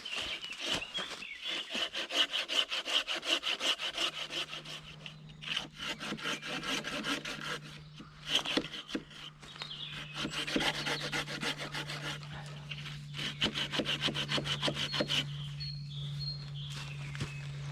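Hand saw cutting through wood in quick back-and-forth strokes, in runs with short pauses between them. A steady low hum comes in about four seconds in.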